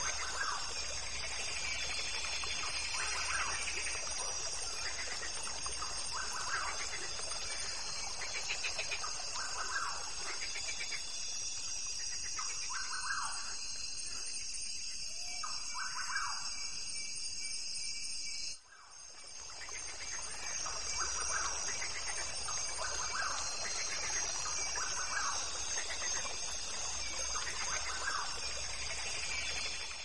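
Recorded nature ambience: birds chirping every second or so over a steady high-pitched hum. It drops out abruptly about two-thirds of the way through and swells back in.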